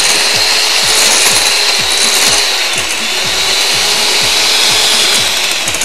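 Electric hand mixer running steadily, its beaters whisking two eggs in a bowl, with a steady motor hum.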